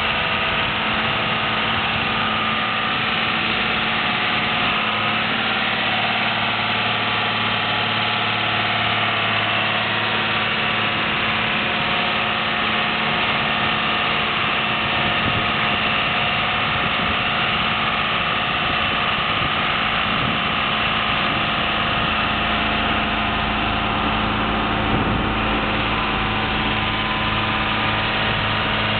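John Deere 4450 tractor's six-cylinder turbo diesel engine running steadily while it drives a PTO snowblower.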